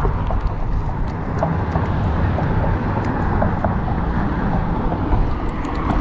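Steady low outdoor rumble, with faint light ticks from a spinning reel being cranked to reel up a hooked fish.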